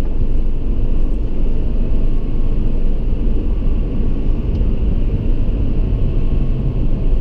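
Steady low rumble of road and traffic noise in a road tunnel, heard from inside a car moving slowly in traffic.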